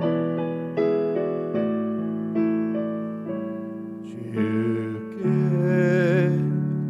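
Electric piano or keyboard playing a slow hymn introduction in sustained chords. In the second half a held melody line with vibrato joins in.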